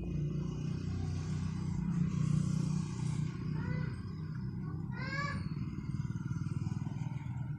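Thick ginger and sugar mixture being stirred in a pan over a low flame as it cooks down toward setting: a steady low rumble with a faint hiss. Two short rising squeaks come about three and a half and five seconds in.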